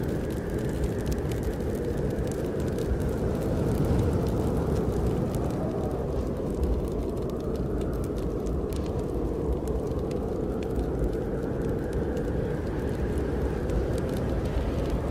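Snowstorm wind blowing steadily, its pitch swelling and easing slowly, with a wood fire crackling in a fireplace as many small sharp pops over it.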